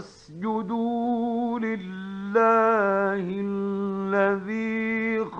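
A male Quran reciter chanting in melodic tajweed style, holding long ornamented notes that slide between pitches, starting about half a second in after a pause. It comes from an archival 1950s radio recording.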